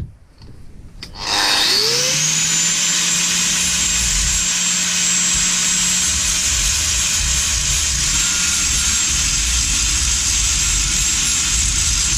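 Angle grinder spinning up about a second and a half in, its pitch rising, then running steadily while grinding a sheared bolt flush with an old engine's cover.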